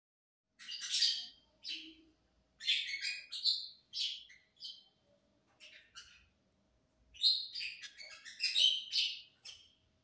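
Lovebird chirping and chattering in quick runs of sharp, high chirps, in several clusters separated by short pauses.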